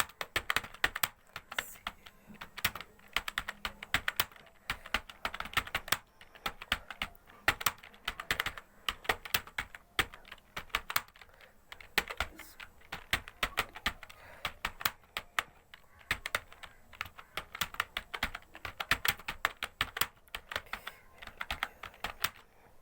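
Typing on a computer keyboard: keys clicking in fast runs with short pauses between them. The typing stops near the end.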